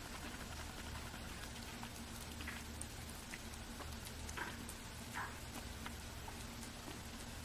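A rabbit chewing: faint, scattered soft crackles, the clearest about four and five seconds in, over a steady low hum.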